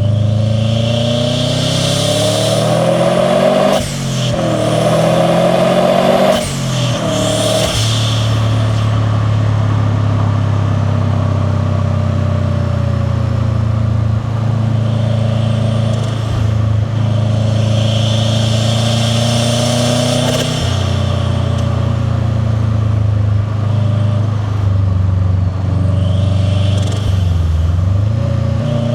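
The turbocharged boxer engine of a 2001 Subaru WRX STi, fitted with a VF48 turbo and a catless exhaust, pulls hard through two quick upshifts in the first seven seconds. Each shift brings a rush of turbo air. It then cruises at a steadier part-throttle note with small throttle changes, the boxer exhaust rumble and induction noise running throughout.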